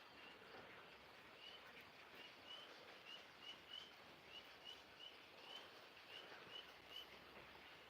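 Near-silent outdoor ambience with a bird chirping faintly and repeatedly: short, slightly rising high chirps, two or three a second, over a soft hiss.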